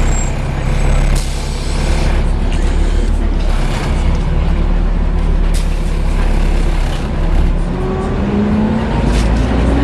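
Volvo B7TL bus's diesel engine running, heard on board, with its engine cooling fan making a loud, steady hoovering whoosh over it and a few short rattles. Near the end the engine note rises as the bus picks up speed.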